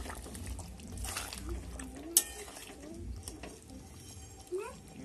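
A metal spoon stirring a thick mutton and potato curry in a kadai, scraping and clinking against the pan, with a sharp knock about two seconds in. A short rising tone comes near the end.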